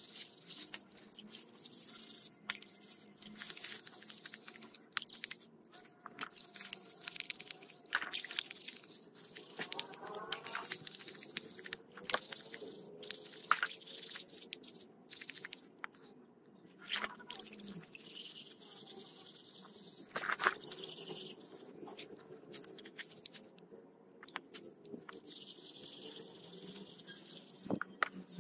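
Wire brush scrubbing a rusty angle grinder's housing in a tub of soapy water: irregular rasping strokes of the bristles, with splashing and dripping water.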